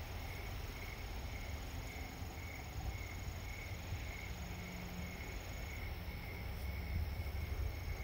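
Night insects chirping in an even pulse about twice a second, with a steady high trill behind them, over a constant low city rumble.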